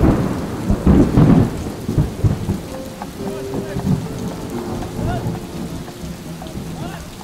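A thunderclap that breaks suddenly and rolls heavily for about a second and a half, then rain falling steadily under fainter rumbling.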